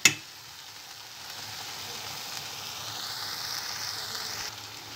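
Bulgur with tomato paste and hot water sizzling in a steel pot on the stove as it soaks up the water: a steady soft hiss that eases a little near the end.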